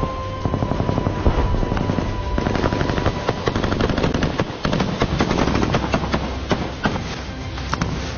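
Heavy small-arms fire, rapid automatic rifle shots, near and far, tumbling over one another, thinning out in the last second or so.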